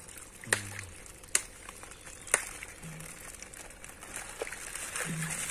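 Pond water splashing and lapping around a plastic bag of fish fry as it is dipped and opened in the water, with three sharp splashes about a second apart.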